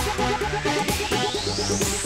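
Electronic dance music: a fast repeating synth figure over a beat, with a synth sweep rising steadily in pitch.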